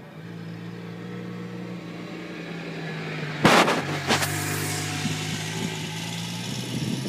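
A sand wedge splashes through greenside bunker sand in a bunker shot about halfway through: a sharp hit, a second smaller crack a moment later, then a brief hiss of sprayed sand. A motor vehicle's engine hums steadily underneath.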